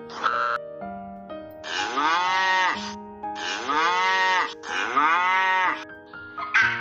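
Cattle lowing: three drawn-out moos about a second each, every one rising and then falling in pitch, over background music with long held notes.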